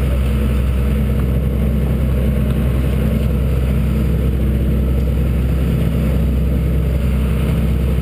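Steady low engine drone at an even pitch, with no revving or change throughout.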